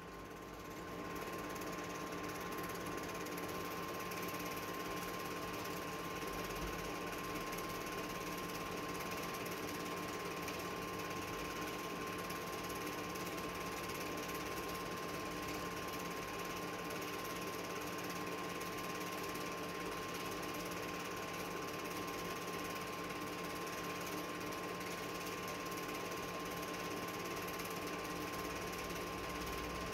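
Film projector running: a steady mechanical whirr and clatter with a constant hum.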